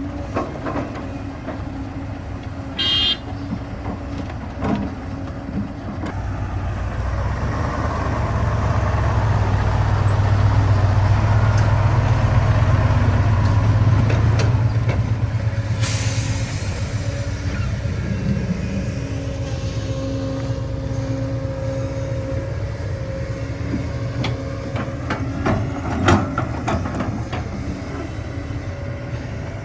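Heavy diesel machinery engine running steadily, growing louder for several seconds in the middle, then easing back. A short high tone sounds a few seconds in, and a brief hiss comes just past the middle, with a couple of knocks near the end.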